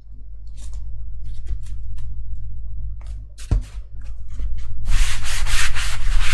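Hands pressing and rubbing a thin foam sheet down onto a cardboard template glued with contact adhesive. Light scrapes and rustles at first, a single knock about three and a half seconds in, then loud, steady rubbing over the last second and a half.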